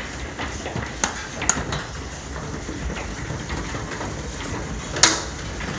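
Hailstorm with golf-ball-size hail: a steady hiss of falling hail and rain, broken by sharp cracks of single stones striking. The loudest crack comes about five seconds in.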